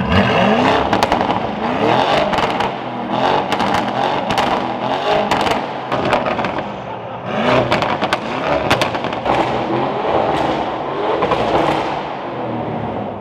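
Lamborghini Urus twin-turbo V8 through an FI valved aftermarket exhaust with the valves open, blipped several times: each rev rises in pitch and falls away, with crackles and pops as the throttle is let off.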